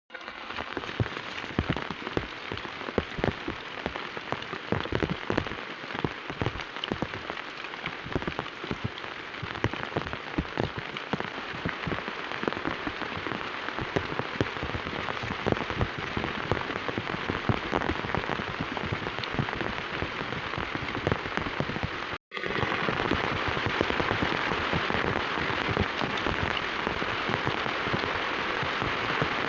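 Heavy rain hitting a hard surface close to the microphone, a dense stream of separate drop impacts. After a brief cut about 22 seconds in, the rain is a denser, steadier hiss.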